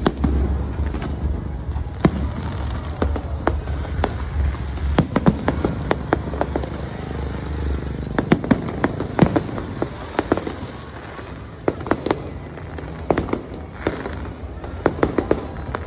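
Aerial fireworks bursting overhead: sharp bangs and crackling pops in clusters, thickest about five, eight to nine and a half, and thirteen to sixteen seconds in, over a low rumble that fades out about eight seconds in.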